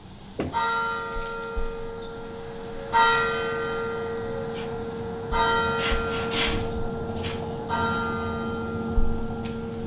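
A single church bell tolling slowly, struck four times about two and a half seconds apart, each stroke ringing on with a steady hum into the next. It is played over a hall's speakers from a film soundtrack.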